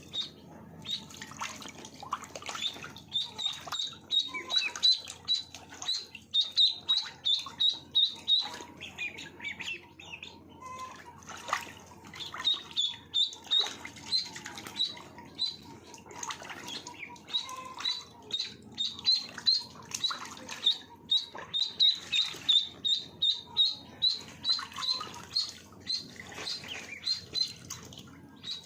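Ducklings peeping: rapid, continuous, high short peeps, several a second, with scattered short taps in between.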